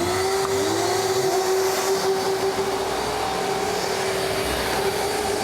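Industrial dust-extraction vacuum just switched on: its motor comes up to speed in the first moment, then runs with a steady whine and a rush of air through the hose.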